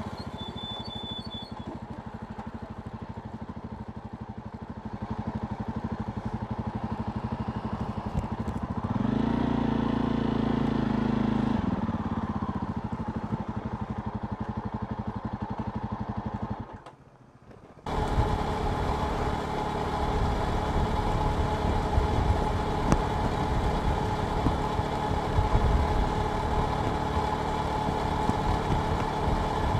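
Jawa Perak motorcycle's single-cylinder engine running while riding. The revs rise about nine seconds in and ease back a few seconds later. The sound drops away briefly and changes abruptly just past halfway, then the engine runs steadily again.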